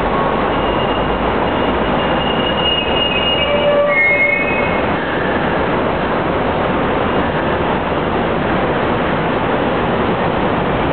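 Hong Kong Light Rail car running on its track with a steady loud rumble. High wheel squeals come and go from about one to five seconds in.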